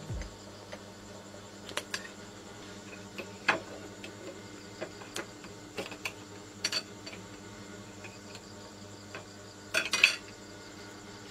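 Metal spoon clinking against a small pot and a ceramic plate as boiled eggs are handled, a few scattered light clinks over a faint steady hum. The loudest is a quick cluster of knocks about ten seconds in, as the spoon is set down on the plate.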